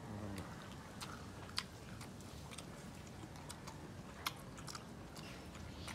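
Quiet chewing and eating at close range, with faint scattered clicks and two sharper clicks, one about a second and a half in and one about four seconds in.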